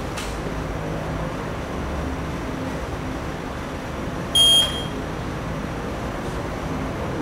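A single short electronic beep, about a third of a second long and a little over four seconds in: the sound stimulus of an auditory reaction-time test. A steady low room hum runs underneath.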